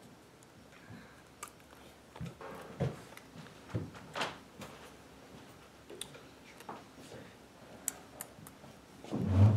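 Scattered soft taps, clicks and rustles of people moving and signing at a table, with one louder low thump near the end.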